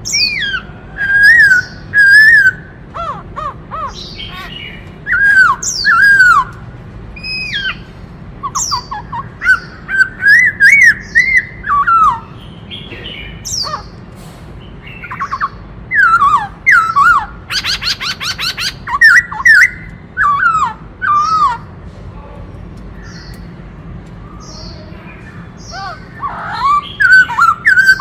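Black-throated laughingthrush singing loud whistled phrases of sliding notes, with a fast rattling trill in the middle. The song pauses for a few seconds near the end, then starts again. A steady low hum runs underneath.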